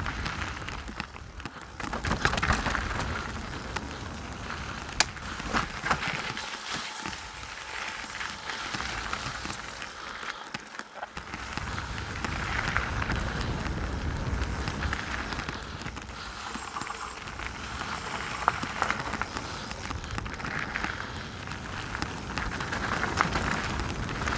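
Mountain bike riding down a rocky trail: tyres rattling and hissing over rock and gravel, with a few sharp knocks from impacts, and wind rumbling on the microphone.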